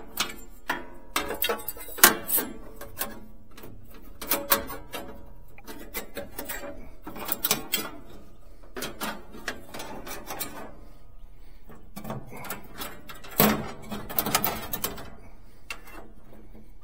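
Irregular clicks, knocks and light metallic clanks from hands-on work as a band blade is fitted onto a band sawmill's wheels, with two louder knocks about 2 seconds in and about 13 seconds in.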